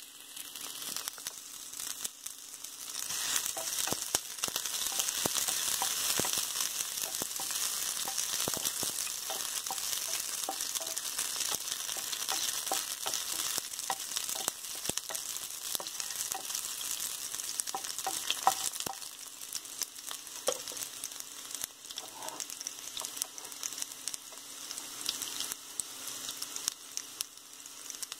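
Chopped garlic sizzling and crackling in hot mustard oil in a kadai. The frying grows louder about three seconds in and eases off after about twenty seconds.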